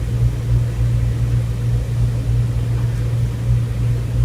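A steady low rumble with no sudden events.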